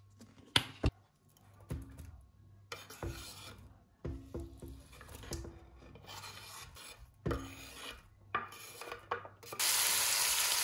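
Two sharp knocks, then chopped salami, onion and bell pepper scraped and rubbed off a wooden cutting board into a pot in several irregular strokes. About a second before the end comes a steady sizzle as the food starts frying in the hot oil.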